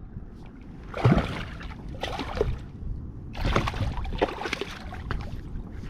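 Water splashing and trickling around a kayak, in two stretches, the first about a second in and the second past three seconds, with a few small sharp knocks.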